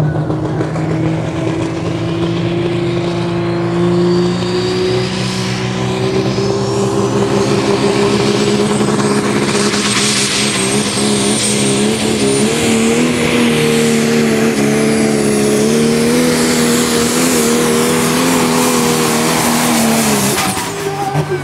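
Pro Stock pulling tractor's turbocharged diesel engine running at full load while pulling the sled. Its pitch climbs slowly through the pull, with a high whistle rising above it. The engine note drops off sharply just before the end as the throttle comes off.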